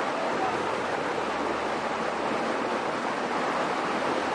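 Shallow rocky stream running over small cascades: a steady rush of water.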